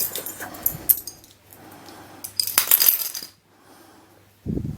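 Small hard puzzle pieces clicking and clattering as they are handled, with a denser run of clicks about two and a half seconds in, then a dull knock of something set down near the end.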